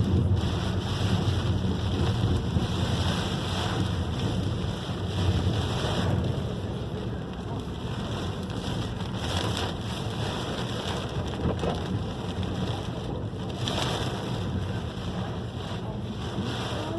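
Heavy rain falling in strong wind. Gusts buffet the microphone with a steady low rumble under the hiss of the rain.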